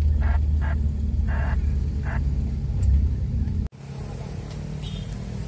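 Vehicle engine and road rumble heard inside the cabin of a slowly moving car. About three and a half seconds in it cuts off suddenly, and a quieter steady rumble follows.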